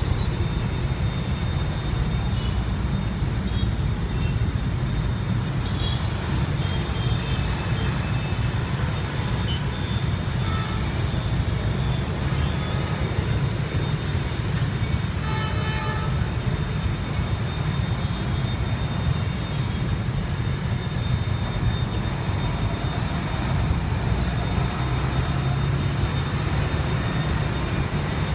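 Steady low rumble of vehicle engines and traffic, with a faint steady high whine above it.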